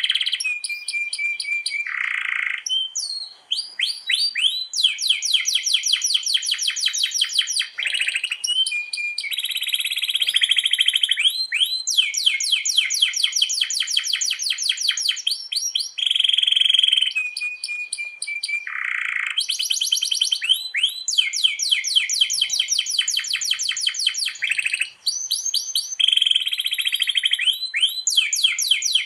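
Domestic canary singing without pause in long rolling trills, each a run of rapidly repeated notes lasting several seconds, broken up by short buzzy notes and held whistles. The song is in full, energetic form (gacor), with long rolls.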